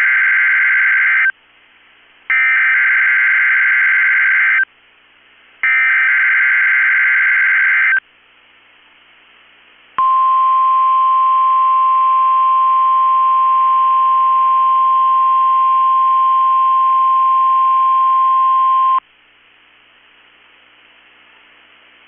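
NOAA Weather Radio's emergency alert test signal. First come three EAS/SAME header data bursts, buzzy warbling tones a second apart, the first already under way. Then, about ten seconds in, the 1050 Hz warning alarm tone holds one steady high pitch for about nine seconds and stops abruptly, leaving faint radio hiss.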